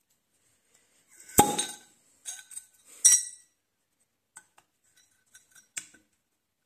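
Flensburger swing-top beer bottle opened: a sharp pop about one and a half seconds in, then a rattle and a bright clink as the porcelain stopper and wire bail knock against the glass. A few light clicks follow near the end as a 3D-printed plastic attachment is pushed onto the bottle neck.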